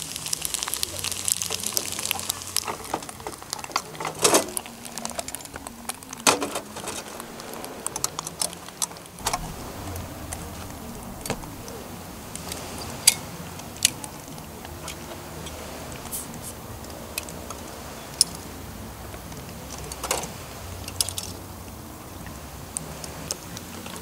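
Macaroni and cheese sizzling and crackling in a hinged cast-iron pan over a gas camp stove, the crackle thinning out after the first couple of seconds. After that come scattered small clicks and knocks of camp gear being handled, over a low steady hum.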